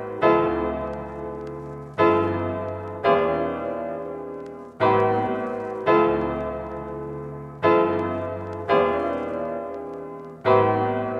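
Background music: slow piano chords, struck in pairs and left to ring and fade.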